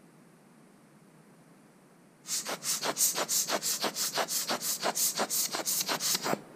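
Rubber hand air blower bulb squeezed over and over, giving a quick run of short hissing puffs of air, about four a second, that starts a couple of seconds in and stops near the end; it is blowing dust off a phone's camera module.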